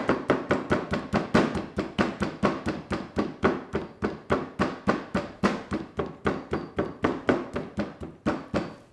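Chinese cleaver blade chopping quickly and lightly into a pork chop on a wooden chopping board to tenderize and flatten the meat, about five even strikes a second. The strikes stop near the end.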